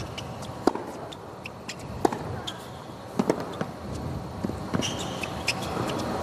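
Tennis rally on a hard court: sharp racket strikes on the ball trading back and forth about every second and a half, with short high-pitched shoe squeaks between them over a low crowd hum.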